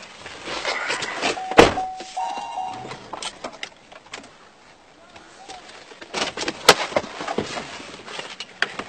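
Scattered clicks and rustling with sharp knocks, the loudest about a second and a half in and another about seven seconds in, and a short steady tone lasting about a second and a half near the start.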